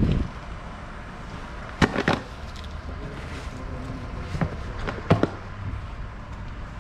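Sharp plastic clicks and knocks from a hand working a motorcycle's hard top case: three close together about two seconds in, then more around four and a half and five seconds. A steady low traffic rumble runs underneath.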